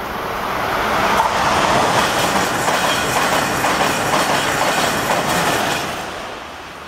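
Amtrak Acela Express high-speed electric trainset passing at speed, a rushing clatter of wheels on rail and moving air. It builds over the first second, holds loud for about five seconds, then falls away quickly as the rear power car goes by.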